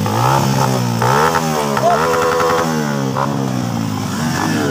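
Enduro dirt bike engine revving up and down over and over, its pitch rising and falling as the bike is worked up a steep dirt climb.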